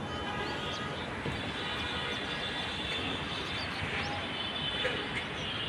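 Steady outdoor traffic noise, an even rumble and hiss, with faint music underneath.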